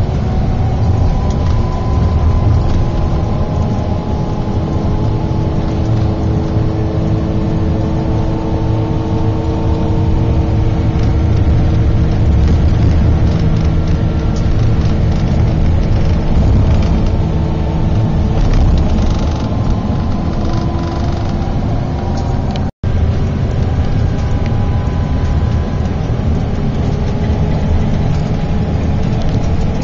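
Steady low engine and road rumble of a long-distance bus, heard inside the cabin, with faint whining tones that drift slowly in pitch. The sound cuts out for an instant about three-quarters of the way through.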